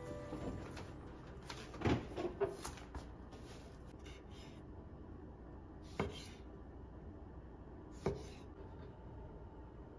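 Kitchen knife cutting cherry tomatoes on a wooden chopping board: two single sharp knocks of the blade meeting the board, about two seconds apart. A short run of clattering knocks about two seconds in comes before them.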